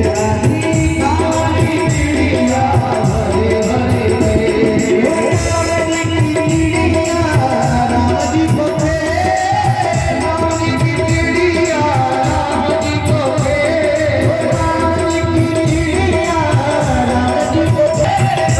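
Hindi devotional folk song: a voice sings a winding melody over percussion keeping a steady beat.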